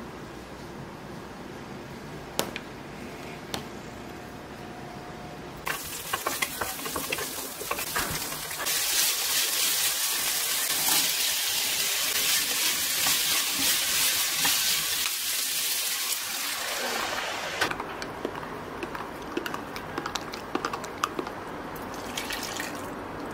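Sliced meat with chopped potato, carrot and onion sizzling as they are stir-fried in a frying pan over medium heat, with a spatula clicking and scraping against the pan. The sizzle starts about six seconds in, is loudest in the middle and eases off over the last few seconds.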